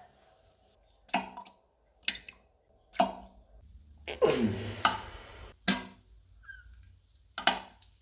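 Toilet sound effect of excrement dropping into the bowl water: about half a dozen short wet plops and squelches roughly a second apart, with a longer squelching splash about four seconds in that drops in pitch.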